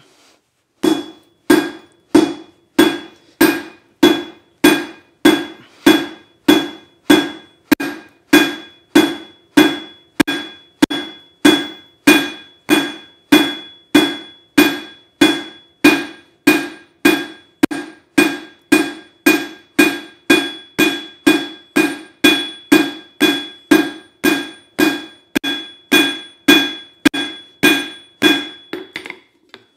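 Hand hammer striking a red-hot half-inch steel round bar on an anvil in a steady rhythm, a little under two blows a second, each blow ringing briefly; the bar is being flattened out.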